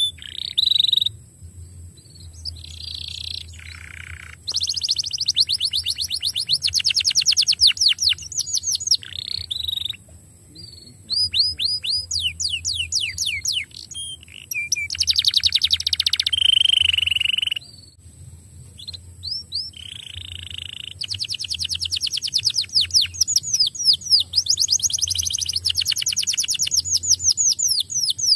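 Domestic canary singing: phrases of fast rolling trills, each a second to a few seconds long, with short pauses between phrases.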